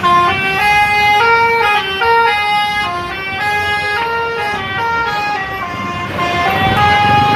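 Basuri bus's telolet horn, a multi-tone horn playing a quick melody of stepped notes, over the bus's engine rumble that grows louder near the end.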